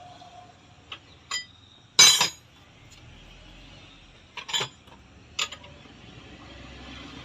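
Metal tools and parts clinking and knocking against each other in a handful of sharp, separate strikes, the loudest about two seconds in, with a cluster near four and a half seconds and a last one about a second later.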